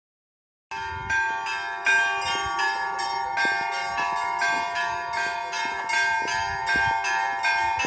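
Church bells ringing a quick peal: several bells struck in rapid succession, their tones overlapping and ringing on. It starts under a second in.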